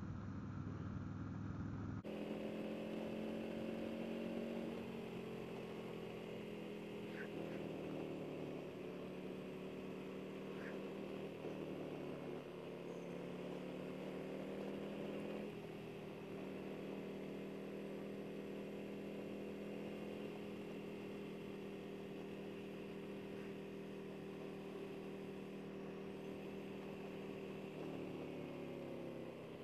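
Harley-Davidson Milwaukee-Eight V-twin of a Road King Special with Vance & Hines slip-on mufflers, running under way on a ride. The engine note rises and falls several times as the throttle and gears change, holds steady for a long stretch, then drops near the end.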